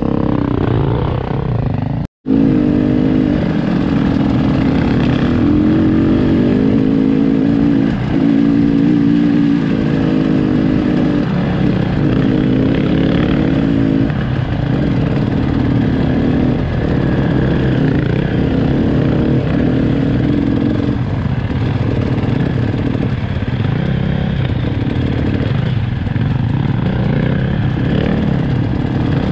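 Enduro motorcycle engine running under way, its revs rising and falling as the bike rides. The sound cuts out completely for an instant about two seconds in.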